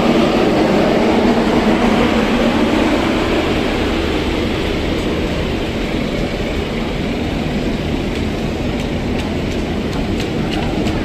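A ferry's engines running on board: a steady low rumble that eases slightly partway through, with a few light clicks near the end.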